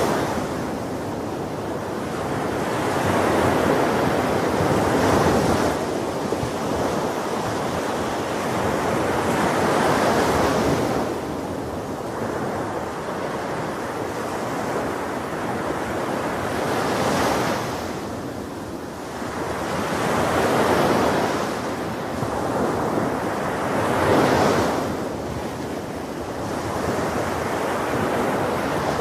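Ocean surf on a beach: waves breaking and washing ashore in repeated swells every few seconds, with wind.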